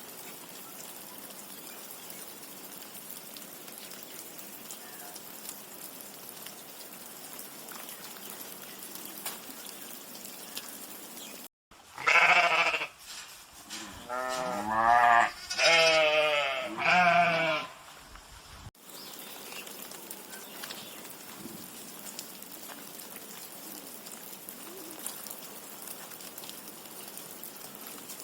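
Sheep bleating, four or five wavering calls in a row, in a stretch that starts and stops abruptly near the middle. Before and after it there is only a steady hiss of background noise.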